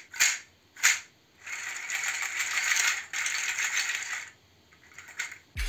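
Seed shell shaker, a cluster of dried seed shells hanging on a cord, being shaken: two short sharp rattles, then a sustained rattle for about three seconds, then a few light rattles. A drum beat comes in right at the end.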